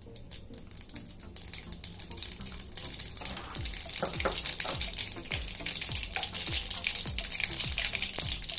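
Mustard seeds frying in hot oil in a small tempering ladle, sizzling and crackling with sharp pops that grow denser and louder about three seconds in as the seeds start to splutter. The spluttering is the sign that the tempering is ready for the next ingredients.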